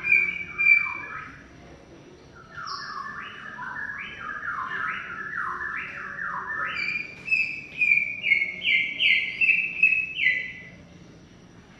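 Cucak ijo (green leafbird) singing a long, continuous song of quick, downward-slurred whistled notes. After a short pause about two seconds in comes a lower run of notes, then a run of higher notes again, fading near the end.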